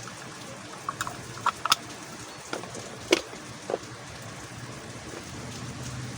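A cube's packaging box being handled and opened: scattered sharp clicks and taps, about seven in the first four seconds, over a steady hiss.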